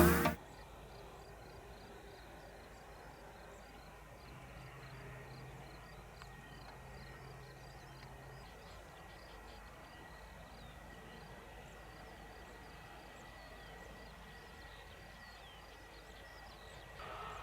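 Intro music cuts off at the start, leaving quiet outdoor ambience: a faint hiss with a quick, even run of high chirps like insects and a thin steady high tone. A faint low hum comes and goes in the middle, and near the end aircraft engine noise comes up.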